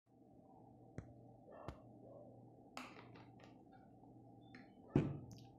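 Faint room tone with a steady low hum, broken by a handful of sharp clicks, the loudest about five seconds in.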